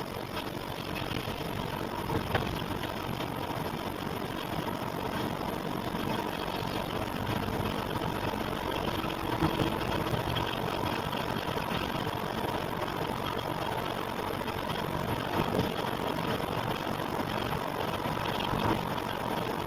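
Engine running steadily at idle, recorded to show an abnormal noise, with a few brief sharper peaks standing out.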